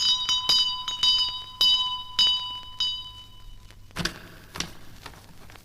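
A small bell rung repeatedly, several ringing strikes about half a second apart that fade out a little past halfway, then two soft knocks. It is the call that summons a butler.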